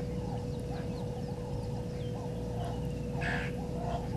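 Wild birds calling around the waterhole in a rapid run of short chirps, with one louder call about three seconds in. A steady hum runs underneath.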